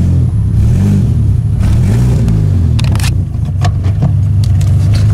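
2004 Mitsubishi Lancer Ralliart's four-cylinder engine running while driving, heard from inside the cabin, its pitch rising and falling twice with changes in revs. A few sharp clicks sound about three seconds in.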